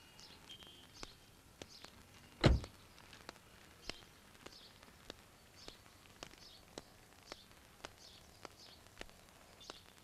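A car door of a Maruti Suzuki Swift hatchback slams shut once, about two and a half seconds in; it is the loudest sound. Then come footsteps at an even pace, about two steps a second, over faint bird chirps.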